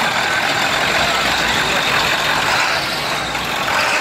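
Lifted Ford F-350 pickup on oversized wheels and tyres driving slowly past, its engine running steadily.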